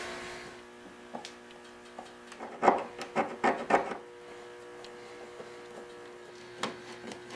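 Hand screwdriver working old screws in a metal plate on the underside of a wooden table top: a cluster of clicks and scrapes between about two and a half and four seconds in, and a few lighter ticks later, over a steady faint hum.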